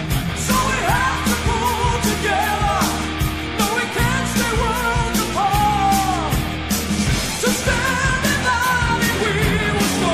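Rock song with sung vocals over a steady drum beat.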